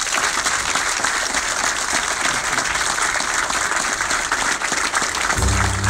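A crowd of people applauding steadily. Low bass music comes in near the end.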